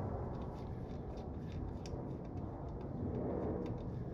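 Steady low hum of shop room noise, with scattered faint light clicks of a hand Torx driver backing out the screws of a Harley primary derby cover.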